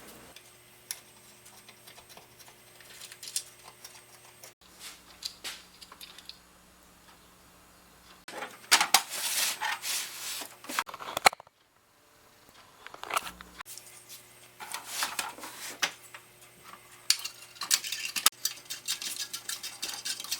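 Small metal clinks, clicks and rattles of hand work on a band saw's parts, coming in several separate stretches.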